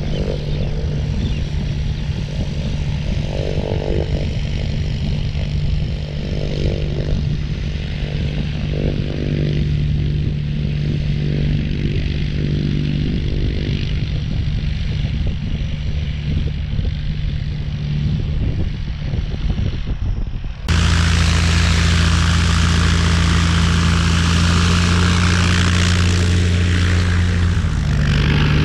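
A steady engine drone, then about two-thirds through an abrupt jump to the much louder, close sound of a 1959 Cessna 172's six-cylinder Continental engine and propeller as the plane taxis past.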